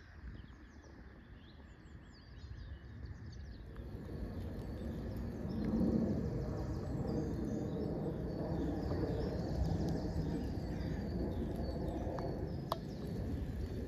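Small birds chirping and singing over a low rumbling background noise that swells a few seconds in; a single sharp click near the end.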